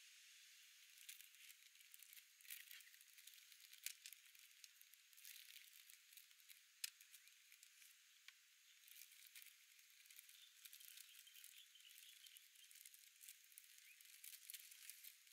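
Faint crinkling and crackling of a plastic instant-ramen packet being handled and torn open: a string of small sharp crackles, after a soft steady hiss in the first second.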